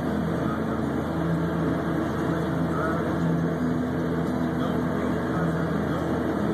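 Snowcat grooming a ski run: its diesel engine runs with a steady, even drone under load, with the rear tiller churning snow.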